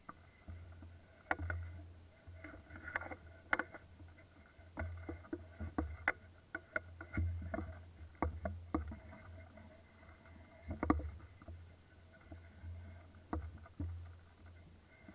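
Irregular clicks and knocks over a pulsing low rumble: handling noise from a camera mounted on an airsoft rifle's barrel as it is carried through brush.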